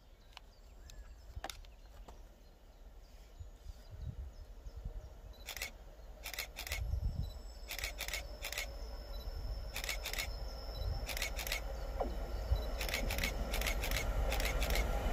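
A Class 66 diesel-electric freight locomotive approaching, its engine rumble and rail noise growing steadily louder. A series of sharp clicks, in pairs and small groups, sounds through the second half.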